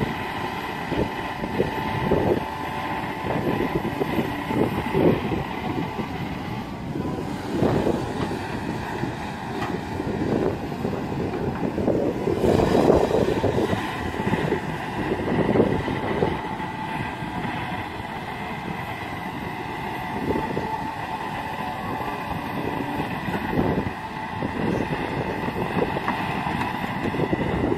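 Kobelco SK210LC-10 long-reach excavator working, its diesel engine and hydraulics running steadily with a constant whine. Wind buffets the microphone in uneven gusts over it.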